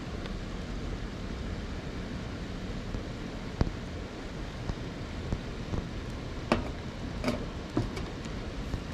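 Steady rushing of river water, with a few sharp clicks over it, the loudest about three and a half seconds in and another about six and a half seconds in.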